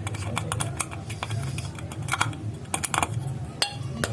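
Irregular light clicks and taps from a ceiling fan's bearing and metal parts being handled and cleaned before greasing, over a steady low hum.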